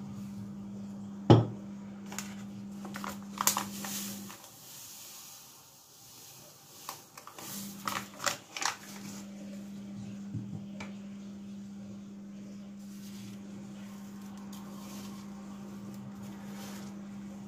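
Kitchen handling sounds as seasonings and breadcrumbs go into a bowl of minced meat: a sharp knock about a second in, then scattered clicks and rustles, over a steady low hum that drops out for a few seconds midway.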